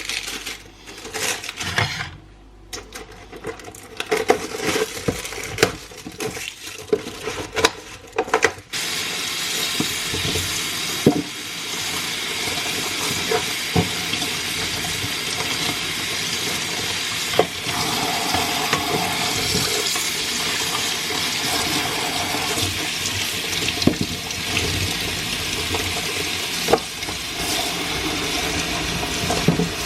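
Scattered clicks and knocks of things being handled, then about nine seconds in a kitchen tap is turned on and runs steadily, with occasional clinks of items being washed under the stream.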